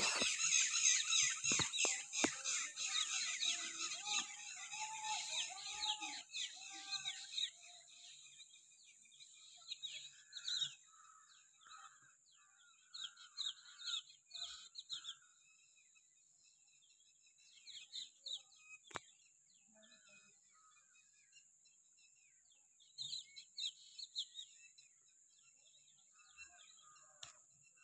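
Small birds chirping and calling, a dense chorus in the first several seconds and then scattered short bursts, over a faint steady high-pitched hiss.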